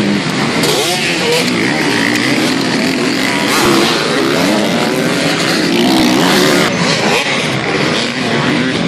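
Engines of several motocross bikes revving and accelerating as a pack races past, overlapping engine notes rising and falling in pitch.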